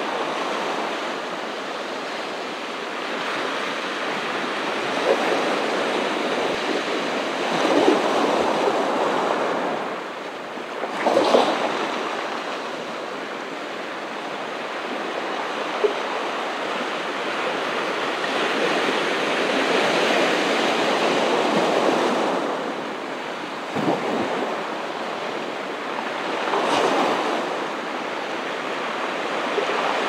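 Ocean waves breaking and washing up a beach: a continuous rush of surf that swells and ebbs as each wave comes in, with a few short, sharper splashes.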